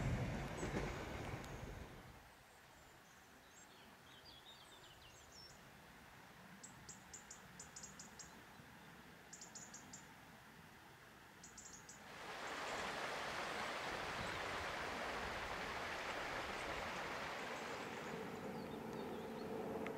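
A passing train's rumble fading away in the first two seconds. Small birds then chirp in short rapid high trills in the quiet. About twelve seconds in, a steady rushing outdoor background noise sets in abruptly.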